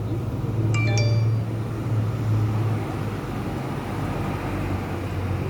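A brief ringing clink of Christmas tree ornaments about a second in, over a steady low hum.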